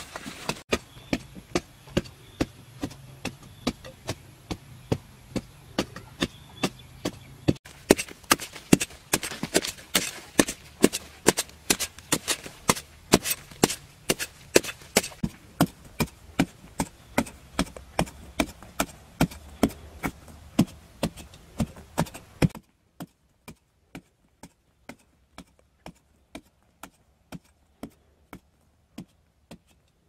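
A hoe chopping into dry, hard earth in a steady series of strikes, about two a second, each a sharp thud with loose soil scattering.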